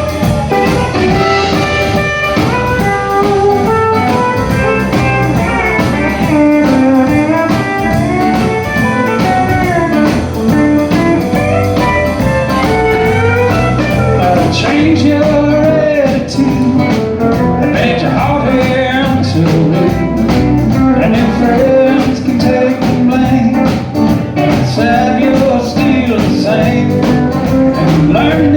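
Live country band playing an instrumental break: a guitar lead with bending notes over a steady drum beat.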